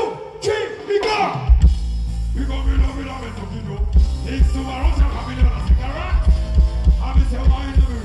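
Live band playing through the PA at a sound check: a man's voice over the PA at first, then heavy bass and a steady pulsing kick-drum beat come in about a second and a half in, with singing above them.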